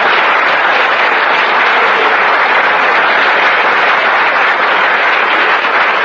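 Studio audience laughing and applauding in a steady, loud wash of sound, heard on a 1947 radio broadcast recording.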